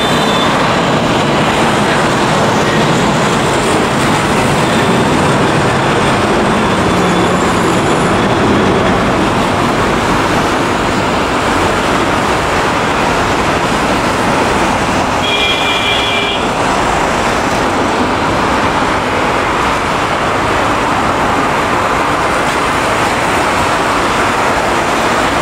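Boeing 767 climbing out after takeoff, its twin jet engines making a loud, steady rushing roar. A brief high-pitched tone sounds about two-thirds of the way through.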